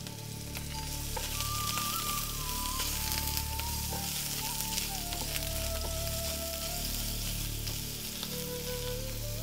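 Carrots frying in hot oil in a pan, a steady sizzle with fine crackling, while a soft melody plays behind.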